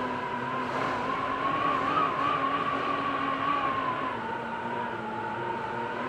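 Strong gusty wind howling with a high whistle that rises in pitch and grows louder as a gust builds about two seconds in, then sinks back after about four seconds, over a steady rushing noise.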